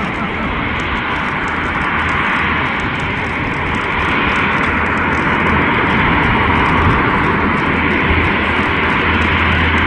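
Airbus A350's Rolls-Royce Trent XWB jet engines running steadily at low power as the airliner taxis, a loud, even rush that swells a little about four seconds in.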